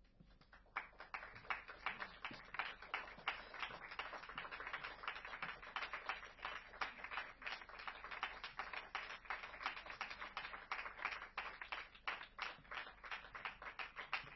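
Audience applauding: a small crowd's scattered clapping that starts about a second in after a moment of silence.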